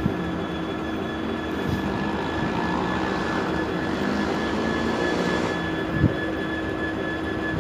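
Freightliner Class 66 diesel locomotive standing with its two-stroke V12 engine idling: a steady drone with a constant whine. There is a single short knock about six seconds in.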